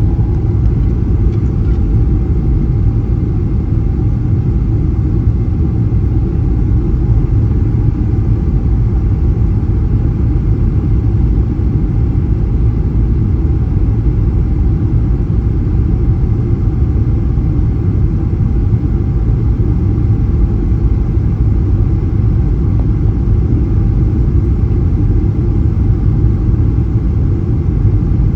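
Steady low rumble of a Boeing 737-900ER's CFM56-7B engines and rushing air, heard inside the cabin, constant in level.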